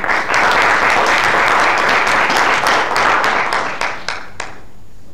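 Audience applauding, dense clapping that thins out about four seconds in and ends with a few last separate claps.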